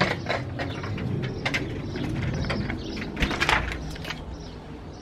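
A few scattered clicks and knocks over a low rumble at a metal security screen door, the loudest knock a little after three seconds.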